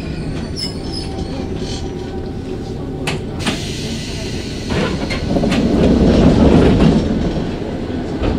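Stationary electric commuter train at a platform, heard from the cab: its onboard equipment runs steadily. There are two sharp clicks about three seconds in, and a louder low rumble swells about five seconds in and eases off near the end.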